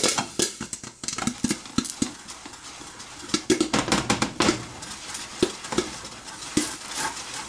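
Popcorn popping in a covered stainless saucepan with a glass lid: irregular sharp pops, mixed with clatter and scraping of the pan and lid as it is shaken on the stovetop.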